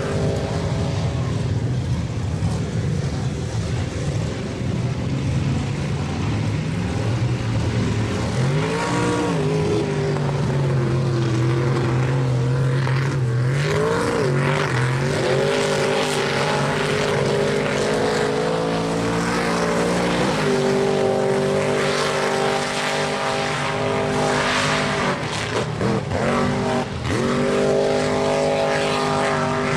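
2600-horsepower mega mud truck's engine running hard at high revs. Its pitch drops and climbs again several times as the throttle is worked.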